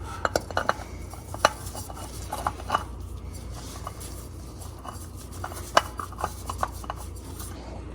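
New spin-on oil filter being threaded onto its mount by hand: irregular light clicks and rubbing, with a few sharper ticks about a second and a half in and near six seconds in.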